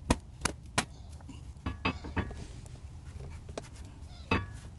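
A handful of short, scattered clicks and taps from metal tools and brake hardware being handled at a brake caliper bracket, with faint rubbing of a cloth rag wiping the bracket.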